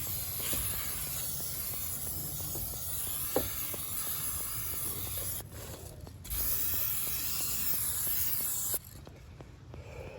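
Aerosol spray can spraying in two long bursts: the first lasts about five seconds, and after a pause of about a second the second lasts about two and a half seconds before cutting off suddenly.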